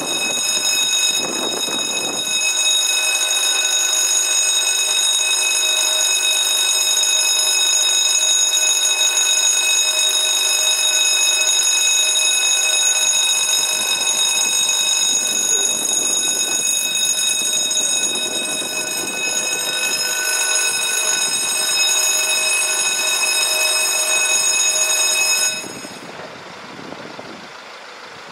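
Electronic warning bell of a Belgian railway level crossing ringing steadily while its red lights flash, then cutting off suddenly near the end once the barriers are down. Road traffic passes under it.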